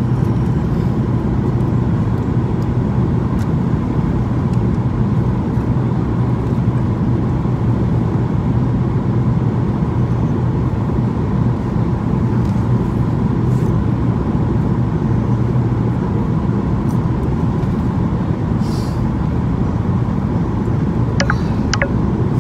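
Steady cabin noise inside a Boeing 737-800 in flight: the even rush of airflow and engines with a constant low hum. A few short, sharp clicks come near the end.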